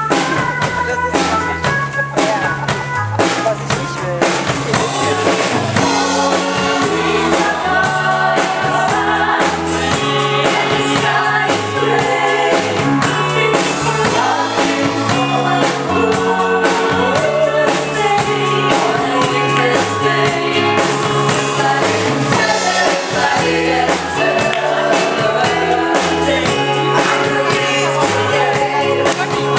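Stage-show music played over a theatre sound system: a song with a drum beat and singing, loud and steady.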